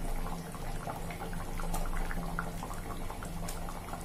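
Thick curry bubbling at a boil, with irregular soft pops as bubbles burst through the coconut gravy, over a steady low hum. The curry is being boiled down until the raw coconut smell goes and the oil separates.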